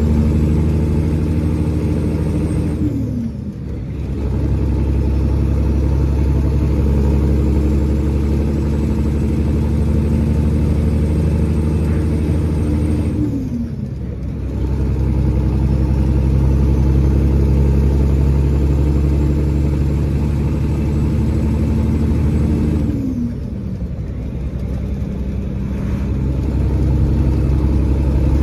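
Semi truck's diesel engine heard from inside the cab, pulling under load through the gears of a manual transmission. The engine note dips and drops in pitch at three gear changes about ten seconds apart, then picks up again in the next gear. A faint high whine rises between shifts.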